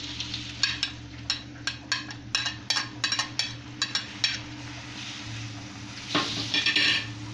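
Metal spoon clinking and scraping against a china plate in a quick run of about fifteen sharp clicks, as sliced tomatoes are scraped off into a pan, with chicken frying in ghee sizzling underneath. Near the end a slotted steel spoon scrapes and clatters around the steel wok as the food is stirred.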